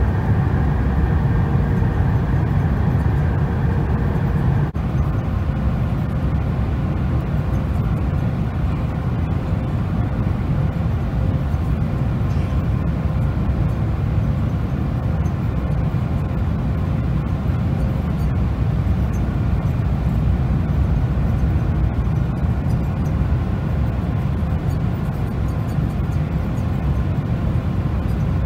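Steady low roar of jet airliner cabin noise, engines and airflow, as the plane descends on approach to land, with a brief break about five seconds in.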